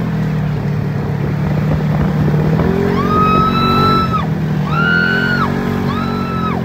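Vehicle engine running steadily, with music playing over it: three held high notes, the first about three seconds in, then two shorter ones near the end.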